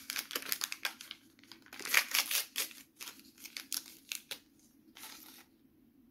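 Orange STIKEEZ blind-bag packet being crinkled and torn open by hand to get the toy out. A quick run of rustles and crinkles, loudest about two seconds in, dying down after about four seconds.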